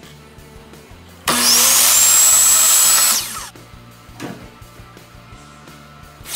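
Ryobi sliding miter saw starting up with a rising whine, running for about two seconds as it cuts a white trim board, then winding down. Right at the end comes one sharp shot from a cordless nail gun.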